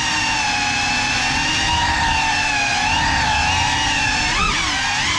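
Small FPV drone's motors and propellers whining in flight, the pitch fairly steady, then dipping and climbing again about four seconds in as the throttle changes.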